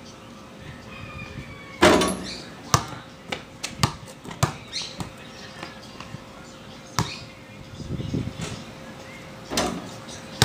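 Basketball bouncing on a concrete court in a series of sharp thuds: a loud bang about two seconds in, a quick irregular run of bounces over the next few seconds, and single bounces later on.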